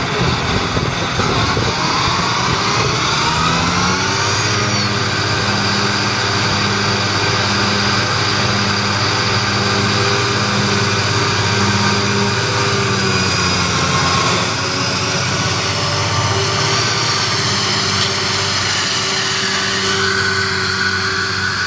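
Deutz-Fahr 9340 TTV tractor's 7.8-litre six-cylinder diesel running with its Kverneland front and rear mower conditioners driven, a whine rising in pitch over the first few seconds, then running steadily.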